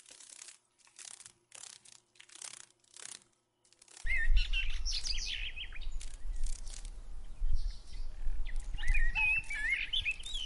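A row of short dry rustling sounds about every half second, then, about four seconds in, a low steady rumble starts suddenly with birds chirping over it in two spells.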